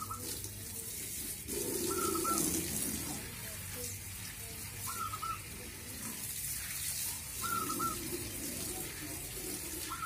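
Caged zebra doves (perkutut) calling: a short high note repeats about every two and a half seconds, with lower coos between, over a steady hiss.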